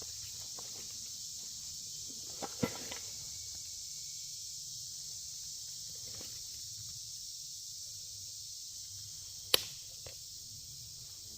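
Steady high-pitched insect chorus, with a few sharp clicks or knocks on top: two about two and a half seconds in and a louder one near the end.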